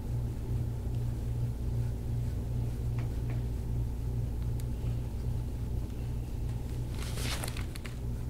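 A steady low hum that pulses gently a few times a second, with a brief rustling noise about seven seconds in.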